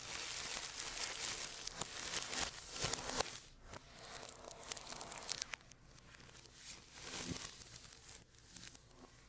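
Packaging being torn and crinkled by hand: a dense run of tearing and crackling for the first few seconds, then quieter scattered rustles with another short flurry near the end.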